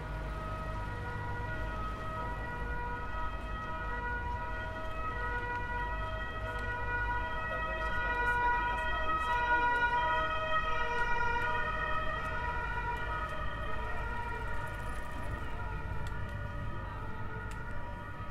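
Emergency vehicle's two-tone siren alternating between two notes. It swells louder about halfway through and then fades, over a low rumble of traffic.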